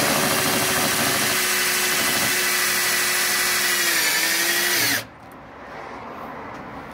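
Electric drill-driver driving a screw into the seam of a plastic washing-machine outer tub. The motor runs steadily for about five seconds, its pitch dropping slightly near the end, then stops abruptly.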